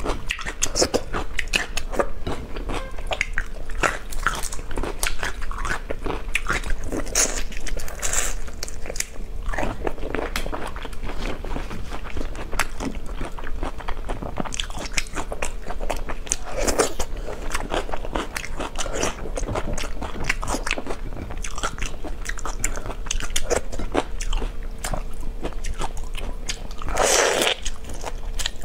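Close-miked eating of marinated raw prawns: a steady run of crackling clicks as the shells are pulled apart and bitten, with wet sucking and chewing. A louder slurp comes near the end.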